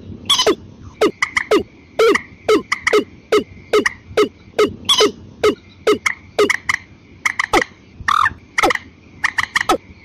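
Recorded calls of a watercock and a common moorhen calling together: sharp calls, each sweeping quickly downward, about two a second in uneven runs, over a faint steady high whine.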